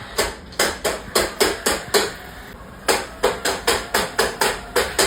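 A rapid series of sharp knocks or taps, about four a second, that stops for about a second partway through and then starts again.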